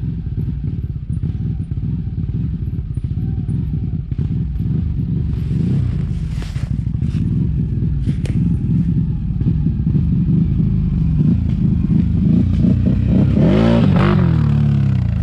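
An ATV's engine running as the quad comes along the dirt forest trail toward the camera, growing steadily louder. Near the end it passes close by, at its loudest, and its pitch drops as it goes past.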